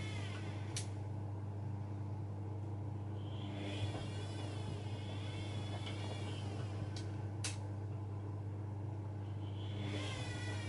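Bosch Maxx WFL 248Y washing machine running: a steady low hum under a high, wavering motor whine that comes in for a few seconds midway and again near the end, with three sharp clicks.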